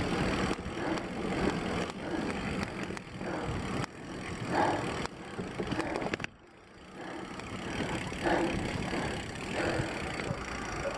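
Mountain bike descending a dirt singletrack: steady tyre and ride noise with many small rattles and knocks from the bike. The noise drops away suddenly for about half a second a little past halfway, then picks up again.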